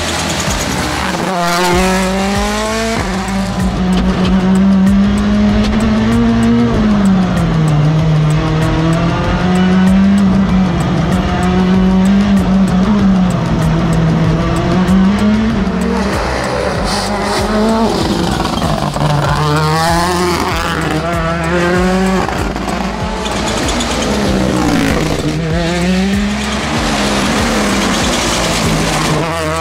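Ford Puma Rally1 Hybrid rally car's turbocharged 1.6-litre four-cylinder engine revving hard through gear changes, its pitch climbing and dropping again and again.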